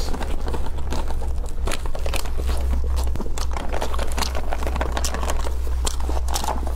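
Close-up eating sounds: crackling, crinkling and tearing as food is pulled apart in plastic-gloved hands, mixed with bites and chewing. Dense irregular clicks run over a steady low hum.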